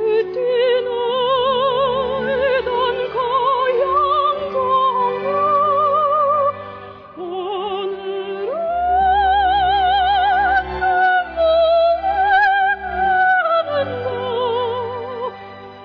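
Music: a slow melody line with strong vibrato over sustained chords.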